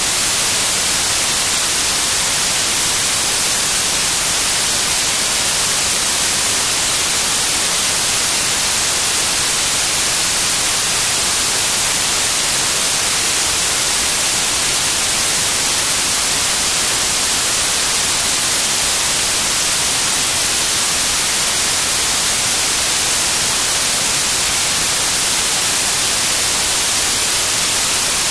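Loud, steady static hiss like white noise, unchanging throughout and strongest in the high end.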